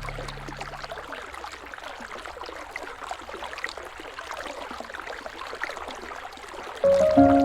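Flowing river water, a steady gentle rush with small bubbling ticks, heard on its own once low music notes fade out in the first second. Sustained music notes come back in loudly near the end.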